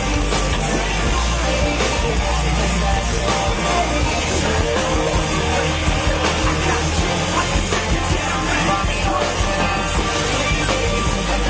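Live rock band playing loud through a concert PA, with electric guitar and a heavy, pounding bass, recorded from the crowd on a small handheld camcorder.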